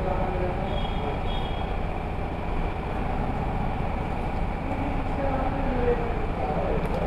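An engine running steadily at idle, with a fast, even beat.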